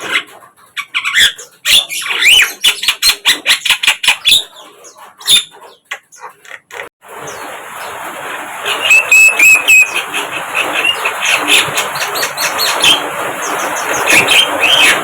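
Javan myna (jalak kebo) calling: a rapid series of harsh chirps and squawks. About seven seconds in, a steady hiss of background noise sets in and the calls go on over it, with a held whistled note partway through.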